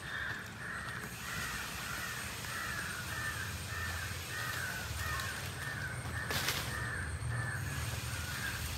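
A bird calling in a steady series of short calls, about two a second, that stops shortly before the end. A single sharp click sounds about six and a half seconds in.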